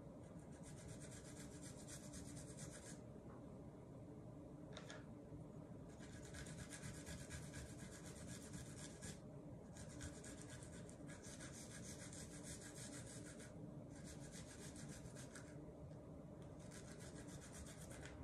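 Garlic cloves grated on a fine metal rasp grater: faint, quick scraping strokes in several spells of one to three seconds, with short pauses between.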